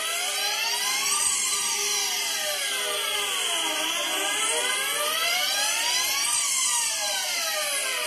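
Electronic synth sweep with no beat, a whooshing sound whose pitch glides slowly up and then down. It makes about one full rise and fall every five seconds, like the build-in to a rave track.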